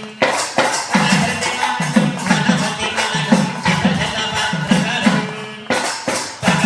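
Background music with a steady, fast beat and shaker or tambourine-like percussion.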